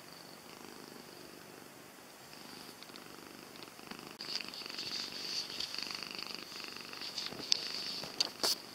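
Domestic cat purring steadily. The purr is louder from about four seconds in, and there are a few sharp clicks near the end.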